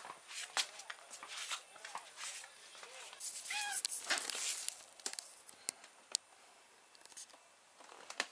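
Knife slicing a block of cheese on a plastic bag: scattered small clicks and crinkly plastic rustling, busiest from about three and a half to five seconds in. A short high cat mew comes about three and a half seconds in.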